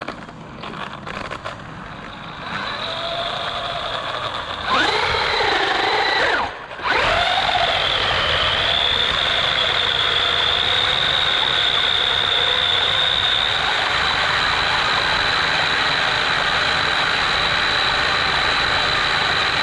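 Electric RC buggy's motor and gears whining, heard from a camera mounted on the car, over the rumble of its tyres on the floor. The whine rises and falls about five seconds in as the throttle is worked, cuts out briefly near seven seconds, then holds a steady high pitch as the car runs on.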